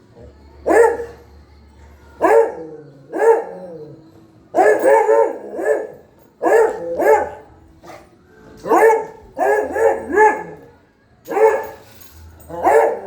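A puppy barking over and over, about fifteen high-pitched barks, some single and some in quick runs of two or three, with short pauses between.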